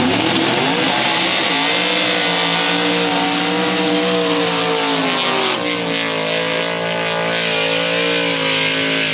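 Street-class drag car's engine held at high revs during a burnout. The pitch climbs over the first second or so, then stays steady, dipping slightly about halfway through.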